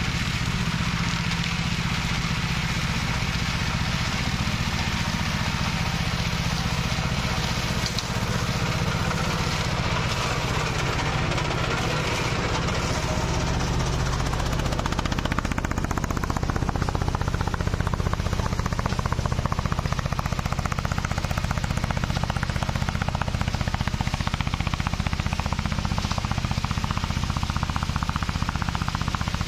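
Rubber-tracked mower running under load, its engine working steadily under a rapid, continuous clatter as the cutter chops through weeds and brush. It gets slightly louder about two-thirds of the way in.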